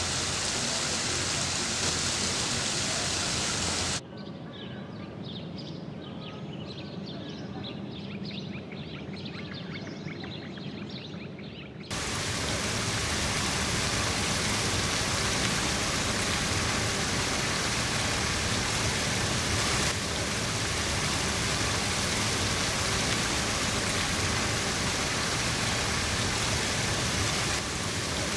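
Running water of a creek and a small waterfall spilling over a concrete weir: a steady rushing hiss. About four seconds in it drops for some eight seconds to a quieter passage with a faint high patter, then the full rush returns.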